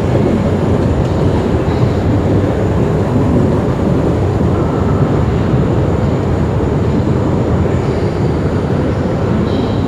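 Long MRT station escalator running, a steady, even mechanical rumble heard while riding it up.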